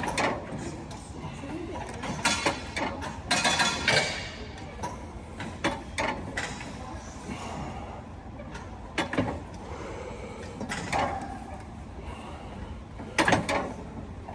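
Gym weight equipment clinking and knocking at irregular intervals, metal on metal, with a sharp knock every couple of seconds over a background of voices.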